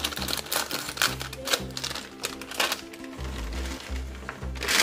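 Background music with a steady, stepping bass line, over sharp clicks and crinkles as a foil snack packet is snipped open with scissors. Near the end comes a louder rustle as the puffed snack rings are poured out of the packet onto a tray.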